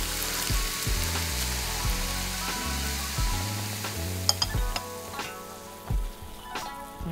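Hot oil poured over Sichuan chili flakes, sizzling and bubbling, then dying down after about four seconds as the paste is stirred, with a few sharp clicks of the spoon against the ceramic bowl. Background music with a steady beat runs underneath.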